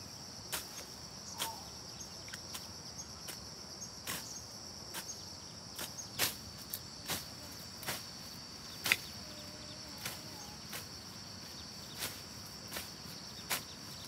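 Steady high insect chirring, with irregular sharp knocks and clicks about once a second, the loudest about nine seconds in.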